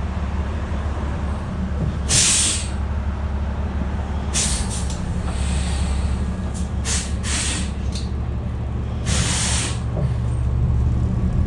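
City bus engine idling with a steady low hum, broken by a run of short compressed-air hisses from the bus's air system. The hisses come about two seconds in, in a cluster between about four and eight seconds, and once more about nine seconds in.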